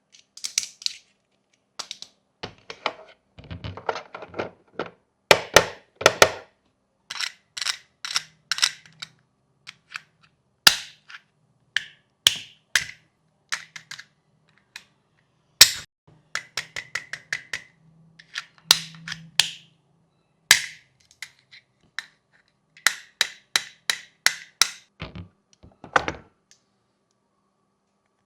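Irregular clusters of sharp clicks, taps and snaps from plastic fidget toys being pressed and flicked by hand, with short pauses between the runs.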